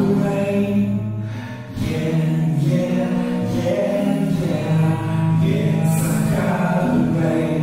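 Music with choir-like singing, sung in phrases with a short dip in level about two seconds in.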